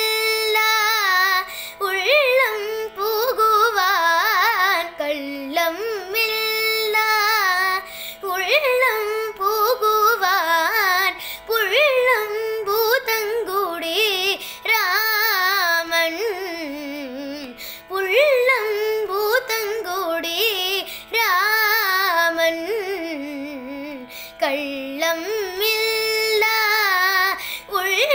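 Tamil devotional song in Carnatic style: a solo voice sings a richly ornamented, wavering melody over a steady drone.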